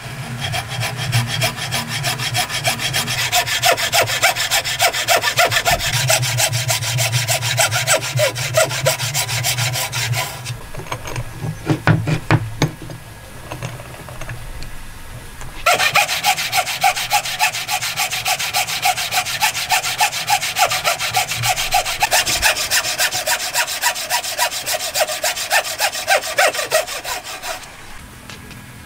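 Thin hand saw cutting across a block of wood in quick back-and-forth strokes, scoring a shallow kerf. About ten seconds in the sawing stops for around five seconds, with a few knocks, then starts again and runs until near the end.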